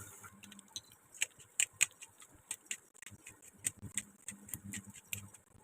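Light, irregular clicks and taps of kitchen utensils, a few a second.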